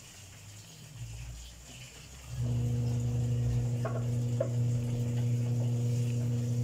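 A steady low electrical hum from a kitchen appliance, off for the first couple of seconds and then coming back on, with two light clicks in the middle.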